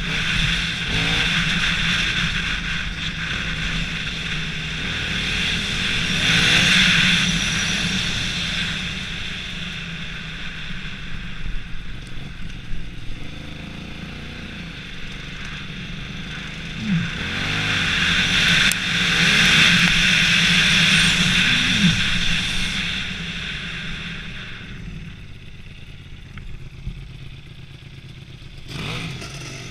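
Off-road dirt bike engine running and revving up and down as it rides along a dirt trail, with wind rushing over the microphone. The engine and wind swell about six seconds in and again around eighteen to twenty-two seconds in, then settle.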